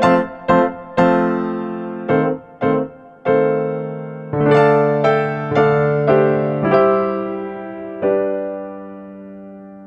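Background piano music: a light melody of struck notes and chords, ending on a held chord that fades away.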